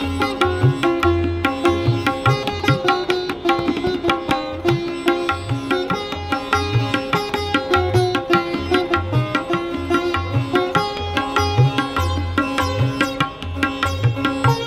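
Sitar and tabla playing together: a plucked sitar melody over a steady tabla rhythm, with the deep booming strokes of the bass drum recurring throughout.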